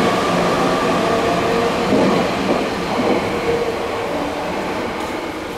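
Keio 1000 series electric train with a Hitachi two-level IGBT VVVF inverter, its inverter and traction-motor whine sounding as several steady tones over wheel and running noise, dying away toward the end.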